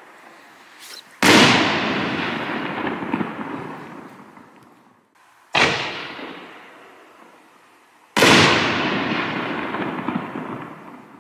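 Fox Fireworks Koto Festival 24-shot cake firing: a shell bursts about a second in with a long crackling tail, a launch thump follows about five seconds in, and a second shell bursts about eight seconds in, again with a few seconds of crackling.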